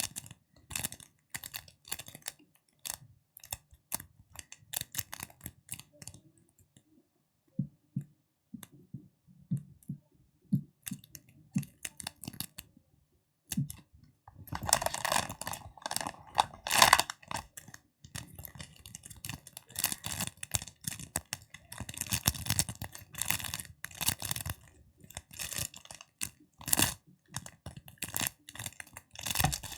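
Close-miked tapping and crackling made by hands. It starts with quick light taps, then a run of duller low taps about eight seconds in, then dense, fast crackling in bursts through the rest.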